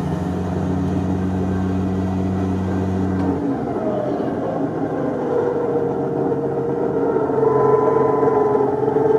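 Off-road vehicle engine running slowly, heard from inside the cab: a steady low hum that drops away about three and a half seconds in, then a higher steady whine from about five seconds on.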